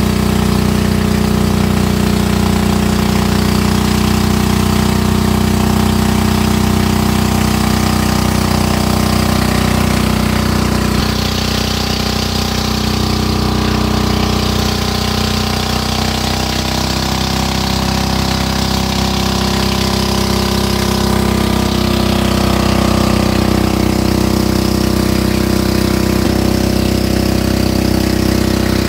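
Boat engine running steadily, its note shifting slightly about ten seconds in and again a little later.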